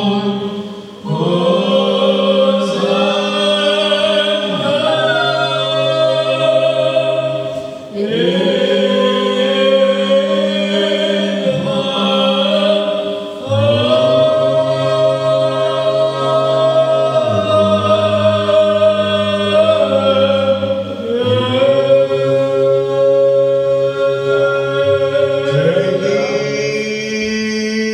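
Unaccompanied Orthodox liturgical chant sung by several voices: long melodic phrases over a steady held low note. The singing breaks off briefly for breath about a second in, at about eight seconds and at about thirteen seconds.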